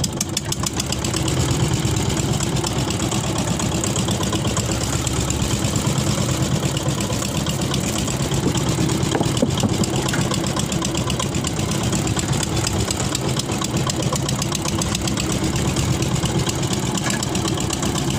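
Wooden fishing boat's engine running steadily with a fast, even beat and a low hum.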